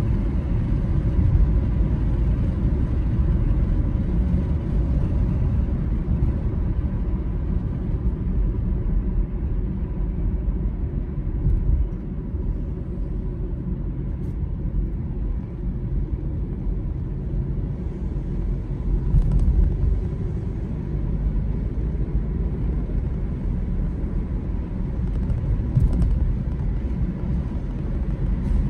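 Steady low road rumble of a moving car heard from inside the cabin: tyre and engine noise, swelling and easing slightly with traffic.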